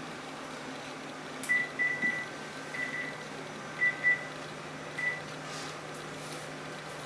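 Phone keypad beeping as a number is dialed: seven short beeps at one pitch, unevenly spaced, over a steady low hum.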